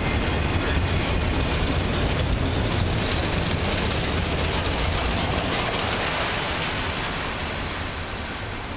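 Freight train's autorack cars rolling past on the rails, a steady rumble of wheels on track that fades away over the last few seconds as the end of the train passes and recedes.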